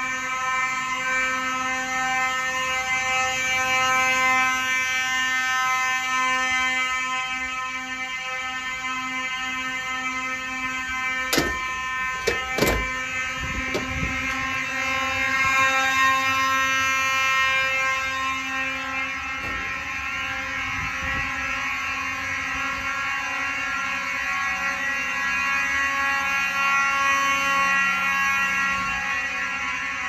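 Simplex fire alarm horns sounding steadily without a break during a system test, with a second horn's lower tone joining about halfway through. A few sharp knocks come between about eleven and thirteen seconds in.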